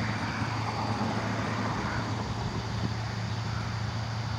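Steady outdoor background noise: a constant low hum under an even hiss, with no distinct events.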